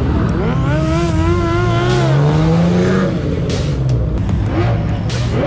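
Mercedes-AMG GT R's twin-turbo V8 revving hard as the car launches away, its pitch rising steadily for about three seconds, with tyres squealing over it.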